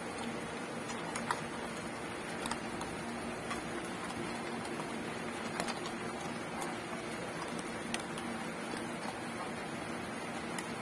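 A dog eating dry kibble from a stainless-steel bowl: scattered crunches and small clicks, over a steady hiss of heavy rain.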